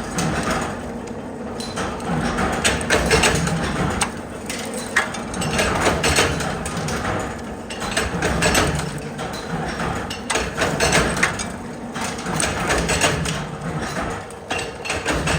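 Nut-making factory machinery running, with a dense, irregular clatter of metal clicks and knocks over a steady machine hum.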